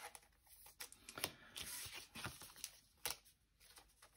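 Pokémon trading cards being handled: faint sliding and rustling of cards, with a few sharp taps or clicks.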